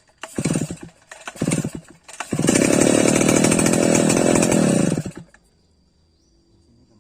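Stihl 070 two-stroke chainsaw engine revving in three short bursts, then held at high revs for about three seconds before it cuts off suddenly.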